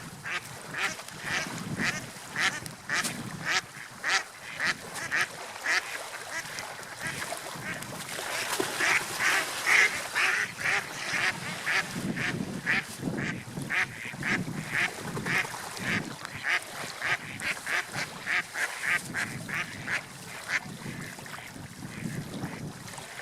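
Birds calling in a long run of short, repeated calls, about two to three a second, over a steady rushing background of wind and water.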